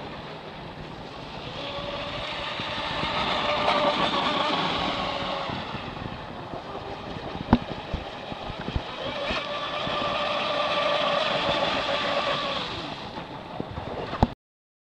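Electric RC racing boat (Black Jack 26 on a 6-cell LiPo) whining across the water with a hiss of spray, the motor whine swelling up twice as it runs past. A couple of sharp clicks come near the middle. The ESC has dropped into low-voltage-cutoff protection mode, so the boat runs short of full power.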